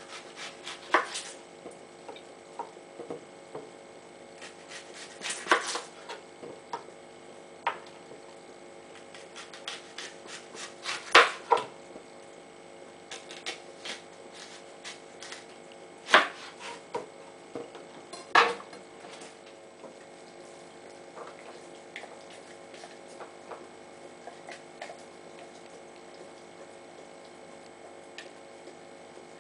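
Kitchen knife slicing through a new onion and knocking down onto a plastic cutting board. There are a handful of sharp knocks a few seconds apart, lighter clicks between them, and a faint steady hum underneath.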